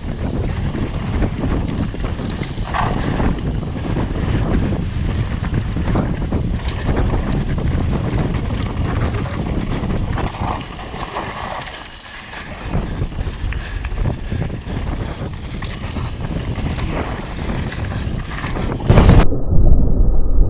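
Downhill mountain bike ridden fast over rough trail: a steady rumble of wind buffeting the microphone and tyres on the ground, with frequent knocks and rattles from the bike. It eases briefly about two-thirds of the way through. A loud thump comes near the end, after which the sound turns muffled.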